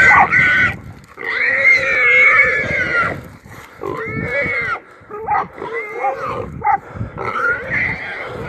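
Feral hog squealing in distress while held by catch dogs: loud, high pitched squeals, a long drawn-out one about a second in, then shorter, broken squeals.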